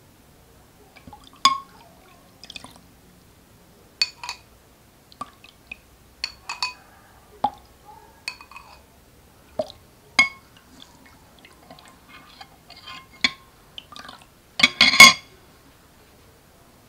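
Metal spoon clinking and scraping against a glass bowl and a ceramic bowl while juice is stirred, with a dozen or so separate ringing clinks and faint liquid sounds. A louder clatter of the spoon comes near the end.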